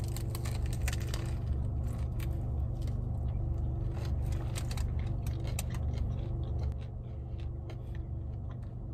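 Chewing and biting into soft tacos, with crisp clicks and crinkles from a foil wrapper, thickest in the first two seconds, over a steady low hum.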